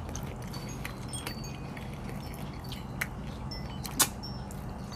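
A few sharp clinks of spoons and cutlery on plates, the loudest about four seconds in, with scattered light high tinkles over a low steady hum.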